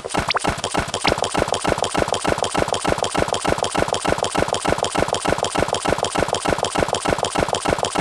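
Japanese railroad crossing warning bells ringing in a fast, even clang of about five strikes a second, several crossings sounding together, with a couple of short rising whistles in the first second or so.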